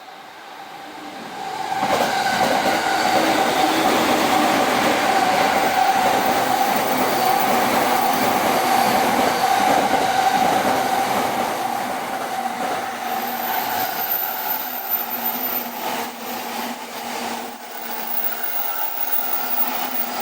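A Chuo Line electric train going past at speed, running fast to make up a delay. It comes up loud about two seconds in, holds with a steady tone over the rail noise, then slowly fades over the second half.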